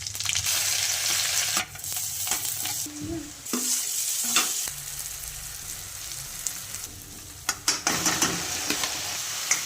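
Arbi (taro root) sizzling in hot oil in a pan while being stirred, with a steady frying hiss and a few sharp scrapes of the spatula against the pan.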